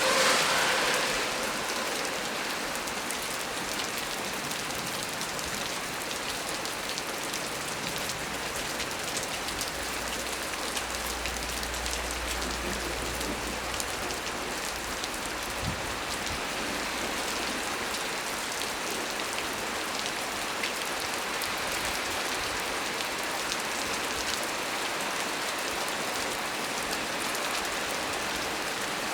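Steady heavy rain falling on a small tree, with scattered drops tapping. There is a brief louder rush at the very start, and a faint low rumble a little before the middle.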